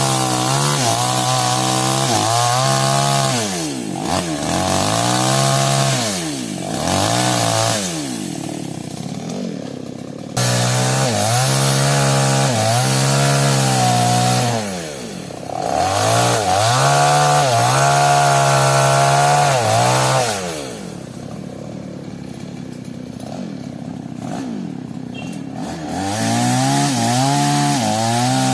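Two-stroke New West chainsaw at high revs, its pitch wavering as it works through sengon wood, then several times letting off and dropping back to a quieter idle before revving up again. A longer idling stretch comes in the second half.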